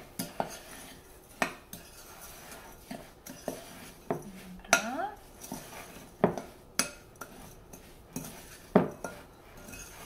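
A spoon stirring and scraping a crumbly, buttery cookie-crumb mixture in a glass mixing bowl, with irregular clinks and knocks of the spoon against the glass about once or twice a second.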